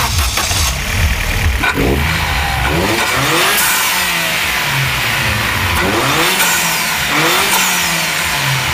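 Car engine revving repeatedly, its pitch climbing in several rising sweeps, with a hiss of noise over it.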